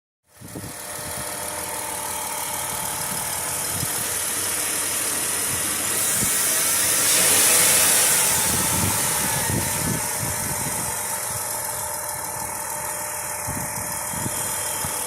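2010 Chrysler Town & Country 3.8L V6 idling with its second replacement 160-amp alternator turning: a steady running sound with a thin constant whine, growing louder in the middle and easing back. This is the alternator sounding normal, which the owner takes to be fine, unlike the bad remanufactured unit before it.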